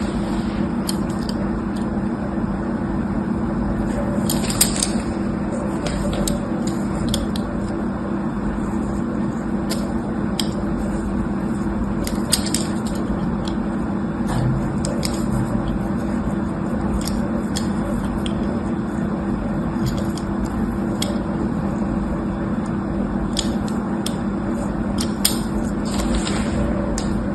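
A steady low hum runs throughout, with scattered small clicks, taps and soft squishes from hands handling slime-making materials.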